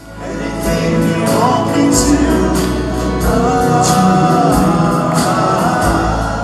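Music with a singing voice over a steady beat, starting abruptly.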